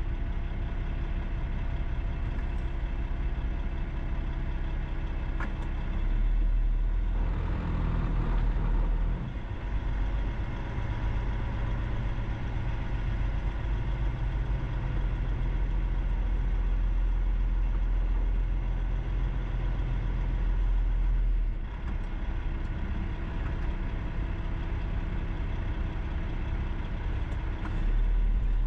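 Steady road noise of a vehicle driving on a highway: a continuous low rumble of tyres and engine with a steady hum, swelling a little louder for a few seconds about a quarter of the way in and again near the end.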